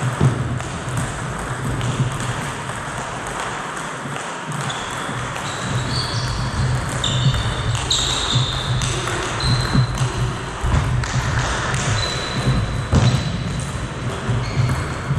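Table tennis play: the celluloid ball clicking off the rubber bats and the table in a rally, with short high squeaks of players' shoes on the sports hall's wooden floor over the hall's steady background noise.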